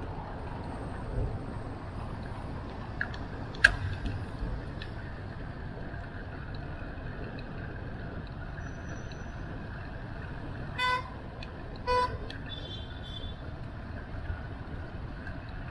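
Two short vehicle-horn toots about a second apart, over a steady low rumble of wind and traffic heard from a moving bicycle in city streets. A single sharp click sounds a few seconds in.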